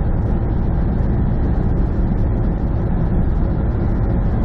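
Steady drone of a semi truck cruising on the highway, engine and road noise heard from inside the cab, heaviest in a low rumble.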